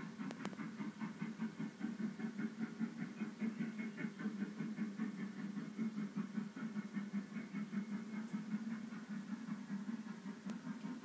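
Model railway's small electric motor running steadily, a hum with a fast, uneven pulse.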